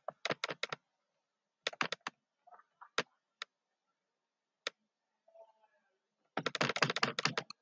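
Computer mouse and keyboard clicking in short runs and single clicks, with a dense, rapid run of clicks for about a second near the end.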